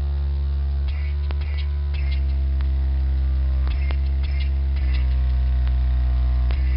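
Sub-bass test tone from a woofer excursion test track played through a subwoofer: a loud, steady deep hum whose pitch shifts in steps every second or so, with short clicks and buzzes over it.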